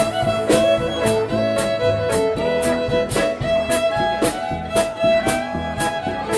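Western swing band playing an instrumental break: a fiddle leads over guitar, bass and drums keeping an even beat of about two strokes a second.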